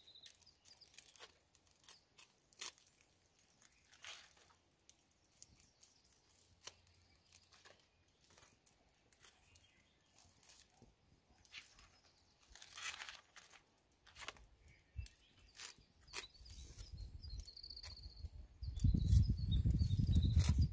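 Knife scraping and spreading cream cheese on a toasted bagel: scattered short scrapes and light clicks. A louder low rumble comes in near the end.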